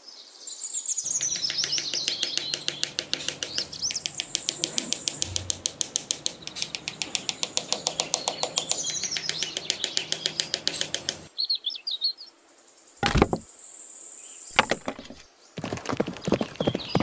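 Birds chirping over a fast, even run of ticks, about seven or eight a second, that stops about eleven seconds in. Two sharp knocks follow, then the chirping and ticking start again near the end.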